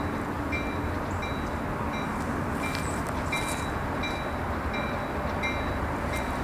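Approaching EMD E8A diesel locomotive running toward the crossing, a steady low rumble, with its bell ringing about once every 0.7 s.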